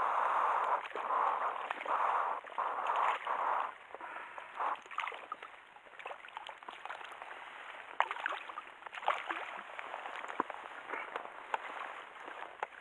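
A hooked trout splashing and thrashing at the water's surface, a run of loud bursts over the first few seconds. It then settles into lighter sloshing with scattered clicks and knocks as the fish is drawn into a landing net.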